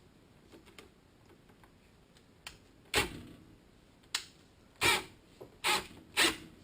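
Clicks and clunks from a wire-stripping tool and heavy stranded cable being handled as the wire is pulled out and fed back in to start the cut over. A few faint ticks come first, then five sharp knocks from about halfway in.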